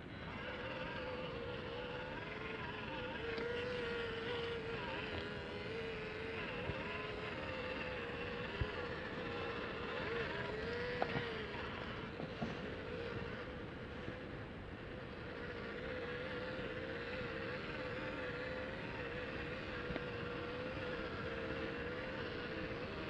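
Small RC crawler's electric motor and drivetrain whining steadily, the pitch wavering slightly with the throttle as it creeps along, with a few sharp clicks and knocks from the rig on the rocks around the middle.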